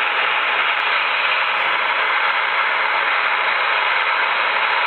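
FlexRadio 6600M HF receiver playing steady band noise through its speaker: an even static hiss with no signal or voice in it.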